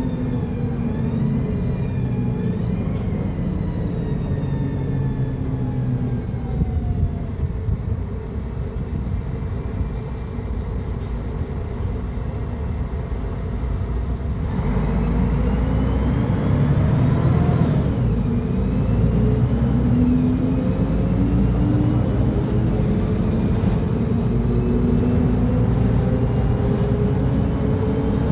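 Mercedes-Benz O500UDA bi-articulated bus's diesel engine and Voith automatic gearbox. Over the first several seconds the engine note falls slowly as the bus slows. About halfway through it comes on louder and climbs in pitch as the bus accelerates, dropping once partway up as the gearbox shifts, then rising again to the end.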